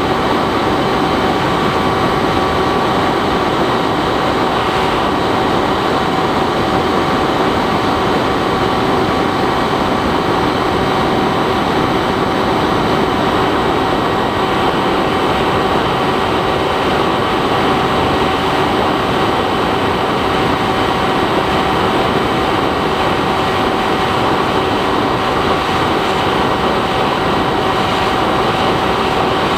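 Electric motor and propeller of a Bixler 3 foam RC plane running at a steady cruise, a constant whine of several steady tones over loud wind rush on the onboard camera's microphone.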